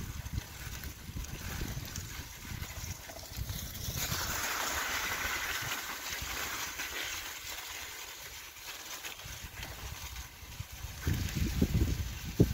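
Bicycle tyres rolling through slush and wet snow, with a hiss of slush that grows louder from about four to seven seconds in. Irregular rumbling from wind and bumps on the microphone at the start and again near the end.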